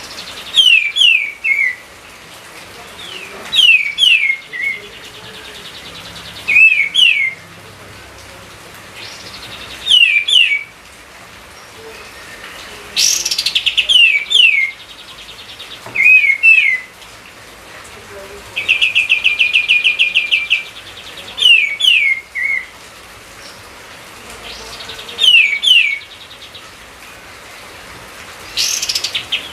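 A songbird singing the same short phrase over and over, about every three seconds: two or three quick whistles that slide downward. Twice the phrase comes with a fast, buzzy rattling trill. A steady hiss runs underneath.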